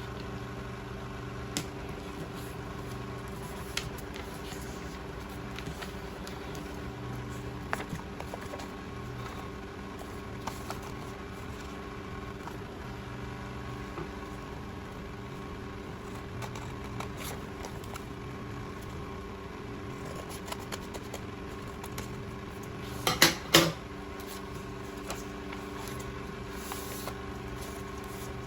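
Steady electrical or fan-like hum with a few fixed tones, scattered faint clicks, and a short cluster of louder knocks or taps about 23 seconds in.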